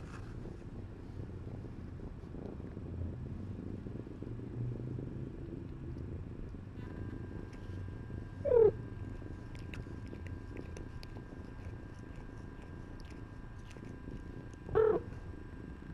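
A cat purring steadily, close up against the microphone. Two short mews falling in pitch cut through it, about halfway and again near the end.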